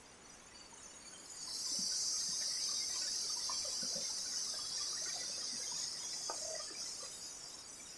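High-pitched insect chorus buzzing steadily, swelling in about a second and a half in and fading near the end, with faint scattered chirps and ticks underneath.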